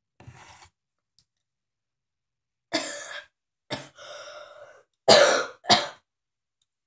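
A person coughing several times and clearing his throat with a longer rasp, the loudest coughs near the end: throat irritation from a spoonful of dry ground cinnamon just swallowed.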